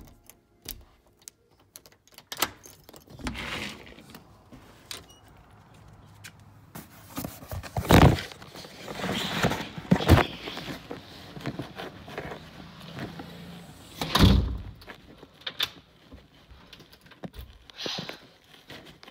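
Clicks of a lever door handle and latch as a front door is worked, followed by rustling handling noise and a few heavy thumps, loudest about eight, ten and fourteen seconds in.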